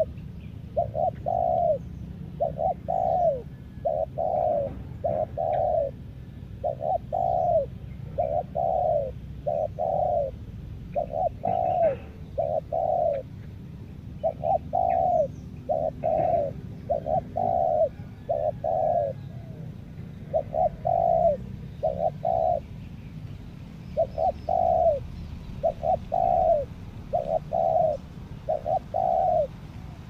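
Spotted dove (tekukur) cooing over and over in short phrases of two or three notes, with brief pauses between phrases. Faint chirps of small birds sound behind it.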